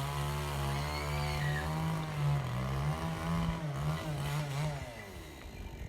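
A small engine running with a wavering pitch, fading away about five seconds in.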